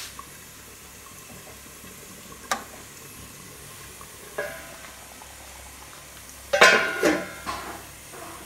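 Oil sizzling steadily in a pan covered with a stainless steel lid, with sharp metal clinks as the lid is handled. The loudest is a ringing clatter of the steel lid about six and a half seconds in.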